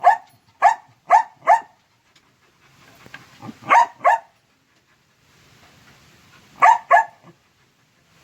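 Hunting dog barking: four quick barks, then a pair of barks a couple of seconds later, and another pair near the end.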